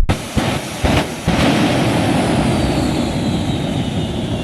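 Airplane engine passing overhead, a steady rushing noise with a high whine that slowly falls in pitch. A few brief knocks come in the first second and a half.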